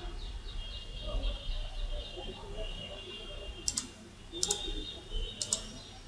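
Three computer mouse clicks in the second half, each a quick press-and-release double click, over a faint steady background hum.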